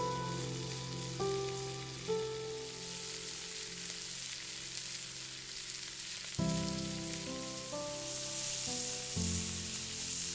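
Meat sizzling on a barbecue grill, a steady hiss that grows a little stronger in the later part, under soft background music of slow, sustained chords.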